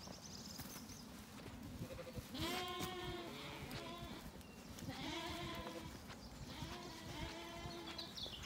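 Zwartbles sheep bleating, a series of calls of varying length that start a couple of seconds in and keep coming every second or two.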